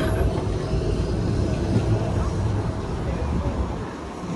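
Blackpool heritage rail coach tram 680 running past on the tramway, a steady low rumble.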